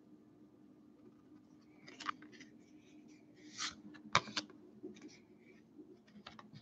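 Baseball cards sliding and flicking against one another as a stack is shuffled through by hand: faint, with a few short scrapes about two, three and a half and four seconds in.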